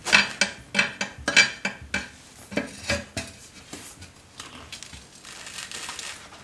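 Steel tyre levers clanking against a steel wheel rim as they are worked in to prise the tyre bead over the rim lip: a quick run of sharp metal clinks over the first three seconds, then quieter scraping.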